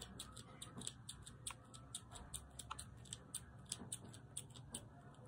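Faint, rapid, high-pitched ticking, about six to eight uneven clicks a second, over a low steady room hum.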